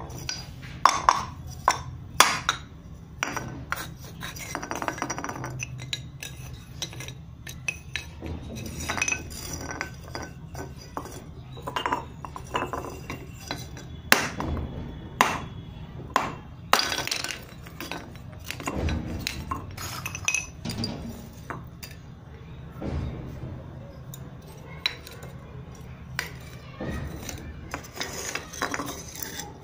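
Unglazed terracotta pots and saucers clinking and knocking as they are handled, in many irregular hard taps.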